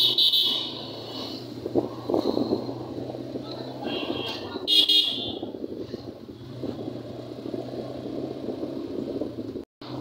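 Street traffic with a steady engine hum, broken by short high-pitched horn toots right at the start and again about halfway through.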